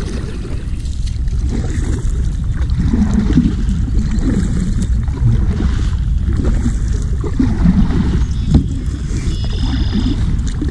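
A kayak moving through marsh water, with uneven splashes of water against the hull. A steady low rumble of wind on the microphone runs underneath.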